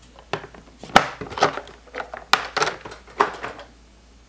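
Hard plastic double-sided tackle boxes being handled on a wooden table: a quick run of about ten sharp plastic clicks and knocks from lids, latches and boxes set down, the loudest about a second in.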